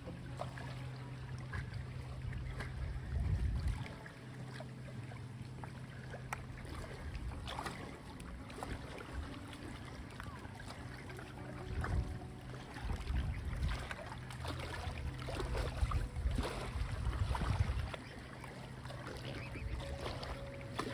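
Strong wind buffeting the microphone in gusts, a low rumble that swells about three seconds in and again from about twelve to eighteen seconds in.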